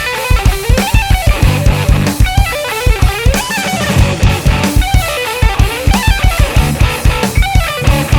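Instrumental math rock played live by a band: electric guitar lines over busy, rapid drum-kit hits.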